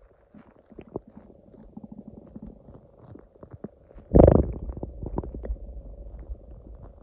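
Stomach growling: small scattered gurgles, then a loud rumbling gurgle about four seconds in, followed by more crackly gurgling.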